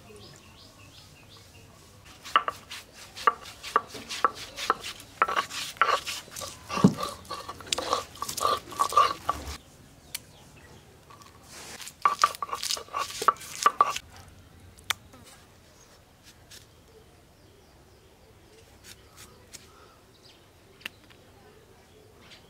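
Stone roller knocking against a flat stone grinding slab (shil-nora) as garlic cloves are crushed. The rapid knocks come in two bouts, a long one early on and a shorter one about twelve seconds in, followed by a few faint clicks.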